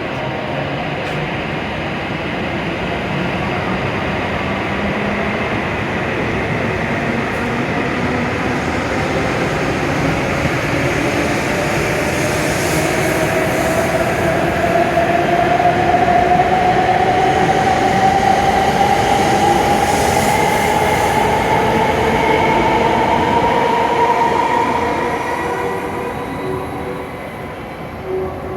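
A W7-series Shinkansen train pulling out of the station, its motor whine rising steadily in pitch as it gathers speed over the rumble of the train, then fading near the end as it moves away.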